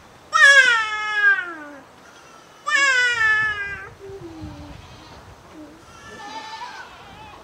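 A young goat bleating: two loud, wavering calls about a second and a half long, each falling in pitch, then a fainter call near the end.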